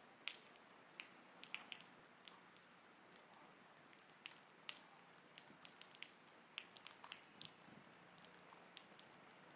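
Wood campfire crackling faintly, with irregular sharp pops and snaps of burning split logs over a low hiss, cutting off suddenly at the end.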